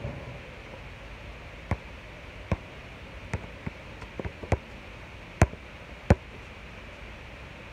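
A basketball bouncing on a hard outdoor court: a series of sharp, irregularly spaced thumps, the loudest two a little past the middle, over a steady background hiss.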